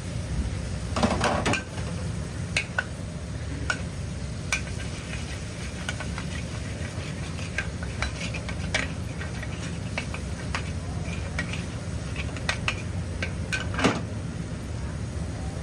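Metal spatula scraping and clanking against a wok as eggs are stirred and scrambled in it, with irregular sharp strikes, a louder flurry about a second in and a sharp clang near the end. Under it, the eggs sizzle and a steady low rumble runs on.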